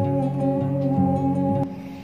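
Instrumental background music with guitar. The bass notes change about twice a second, and the music drops away sharply near the end.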